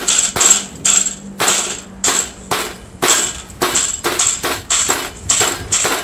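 Flat of a steel cleaver pounding green peppercorns in a plastic bag on a wooden chopping board, crushing them: a steady run of sharp thuds, about two to three a second.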